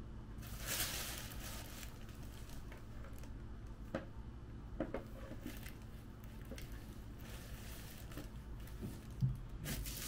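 Quiet room tone with a brief rustle about a second in, a few faint light clicks around the middle, and another short rustle near the end.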